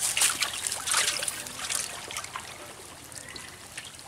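Light splashing and trickling of pond water, busiest in the first second or so, then dying down to a faint hiss.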